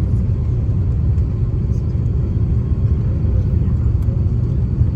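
Cabin noise of an Airbus A350-900 on short final, moments before touchdown: a steady low rumble of its Rolls-Royce Trent XWB engines and the airflow past the fuselage and wing.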